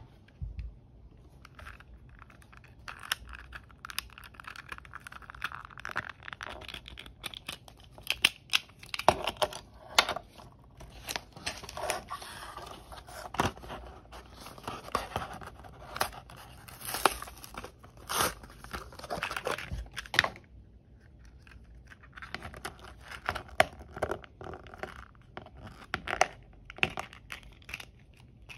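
Plastic stationery packaging being handled and torn open: crinkly rustles and tearing with many sharp plastic clicks from tape-glue dispenser shells being pulled apart, and a short lull about two-thirds through.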